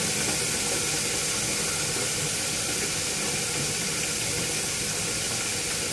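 Floured shrimp deep-frying in a countertop electric deep fryer, the hot oil sizzling with a steady hiss.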